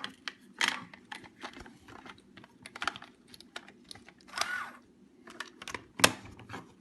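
Plastic clicks and rattles from handling a DYMO LabelManager 160 label maker while its label tape cassette is put back in, with a brief rustle about four and a half seconds in and one sharp loud snap about six seconds in.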